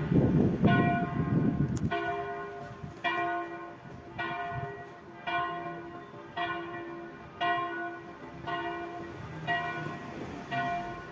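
Church tower bell tolling, about one strike a second, each stroke ringing on. For the first two seconds a loud low rumble lies under the strikes, then stops.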